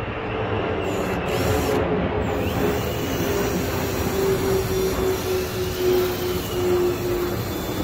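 Cordless drill running steadily through a long drilling pass, its motor whine sagging slowly in pitch under load, over a steady rushing noise.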